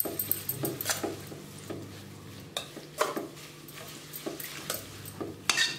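Spoon stirring moringa (drumstick) leaves soaking in water in a steel pot, with irregular light taps and scrapes against the pot. A few louder clinks come about a second in, at about three seconds and near the end.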